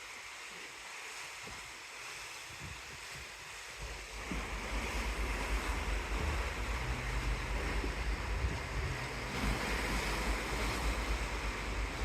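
Wind buffeting the microphone over the rush of the sea below a moving cruise ship, growing louder about four seconds in.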